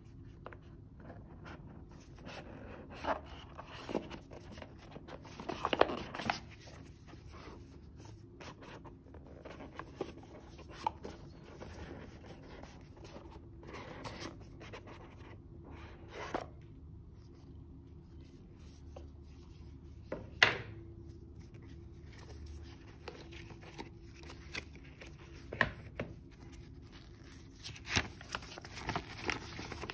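Gloved hands handling a cardboard smartwatch box: soft rubbing and scraping with scattered light taps and clicks, including a sharper click about two-thirds of the way through. Near the end there is paper handling with a few quick taps.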